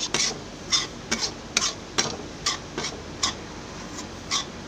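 Metal ladle scraping around a metal kadhai as besan is stirred and roasted in ghee. A quick, uneven run of sharp scrapes comes about two a second, with a short pause near the end.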